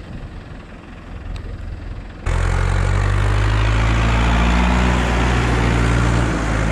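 Ursus farm tractor's diesel engine idling close by, a steady low rumble that comes in suddenly about two seconds in; before that, softer wind noise with a faint engine underneath.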